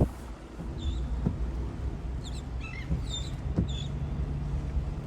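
Seabirds giving short, squeaky high calls several times, over a steady low rumble of wind.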